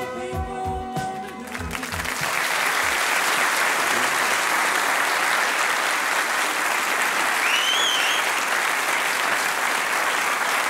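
A studio audience applauding, swelling in about two seconds in as the last notes of a guitar-backed pop ballad die away. The clapping stays steady and dense from then on.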